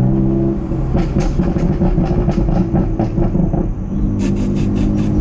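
BMW F80 M3's twin-turbo S55 inline-six exhaust, heard from inside the cabin: a steady drone, which about half a second in breaks into a rapid, uneven run of burbles and pops for about three seconds, then settles back into a steady drone. The off-throttle burbling comes from the Bootmod3 GTS tune with the exhaust valves open; a steady foot on the gas keeps it from burbling.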